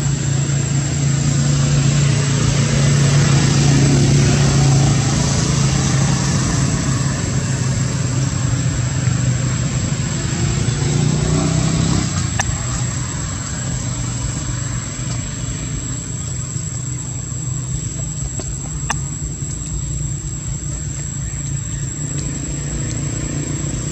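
A motor vehicle engine running steadily: a low hum with a noisy wash over it, a little quieter from about twelve seconds in.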